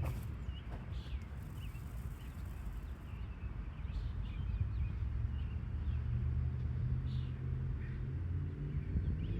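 Scattered bird chirps over a steady low rumble, with a faint engine-like hum coming in about halfway through.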